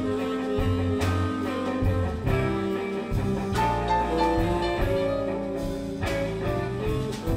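Blues band playing an instrumental break in a slow blues, a guitar taking the lead over bass and a steady beat.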